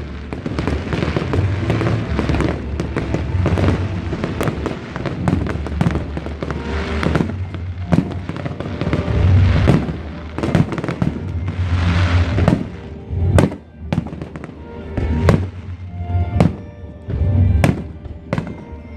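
Aerial fireworks display: a dense run of bangs and crackling with deep booming rumbles, the bursts thinning to separate sharp bangs in the second half. Music plays underneath.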